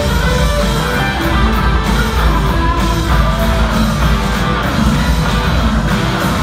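Rock band playing live: amplified electric guitars over a steady drum beat, in a passage without vocals.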